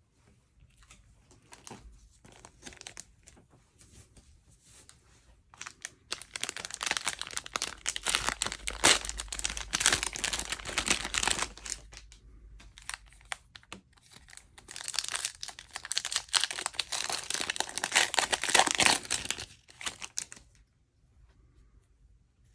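Foil wrapper of a 2020-21 Panini Mosaic basketball card pack crinkling and tearing as it is opened by hand, in two long spells of crackling, from about six seconds in and again from about fourteen seconds. Lighter rustles of handling come before and after.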